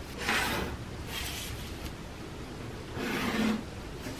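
Pencil drawing straight lines on paper along a clear grid ruler: a few short scratching strokes, with the ruler slid across the sheet between them.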